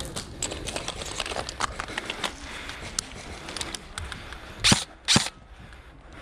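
Airsoft skirmish sounds: scattered faint clicks and taps, then two loud sharp knocks about half a second apart near the end.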